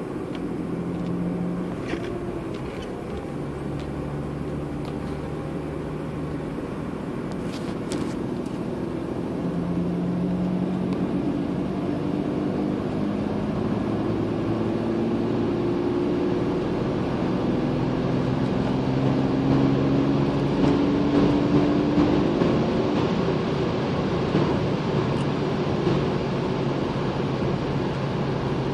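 The BMW 328i's 2.8-litre M52 straight-six pulls steadily under load in fifth gear, heard from inside the cabin with road noise. The engine note climbs slowly in pitch and grows a little louder as the car accelerates. A couple of faint clicks come about two and eight seconds in.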